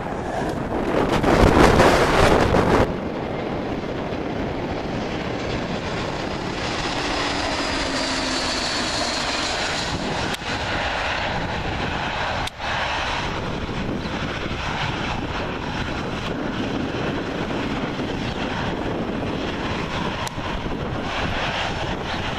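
Jet airliner engines roaring steadily, with a faint high whine, as the aircraft land and roll along the runway. A much louder rushing burst fills the first few seconds.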